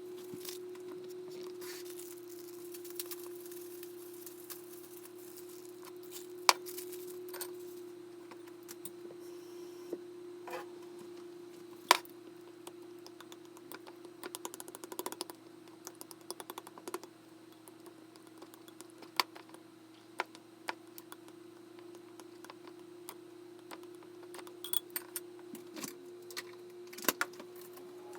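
Scattered clicks and light clinks of kitchen utensils and dishware being handled, over a steady electrical hum from a kitchen appliance.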